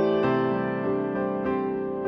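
Slow, soft keyboard music: single piano-like notes struck every quarter to half second over sustained lower notes, each ringing and fading.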